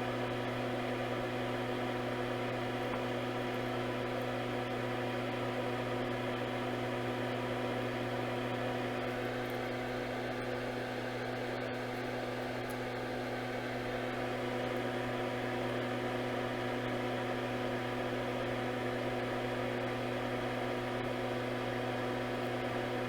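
Steady electrical hum with a faint whir beneath it, unchanging throughout.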